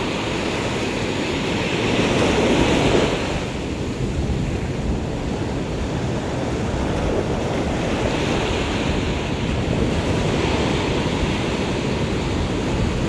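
Sea waves breaking and washing in over the shallows, a steady roar of surf that swells louder about two seconds in and again around eight seconds in, with wind buffeting the microphone.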